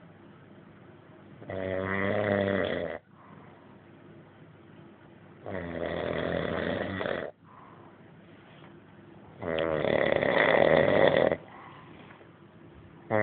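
A sleeping man snoring: three loud snores about four seconds apart, each lasting under two seconds, with quieter breathing between them. The third snore is the loudest.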